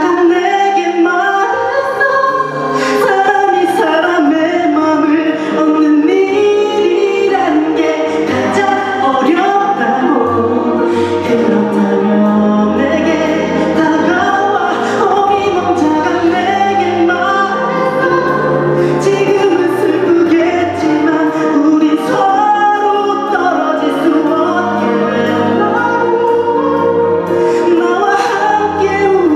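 Live concert music: a ballad sung over band accompaniment, with cymbal strikes every couple of seconds.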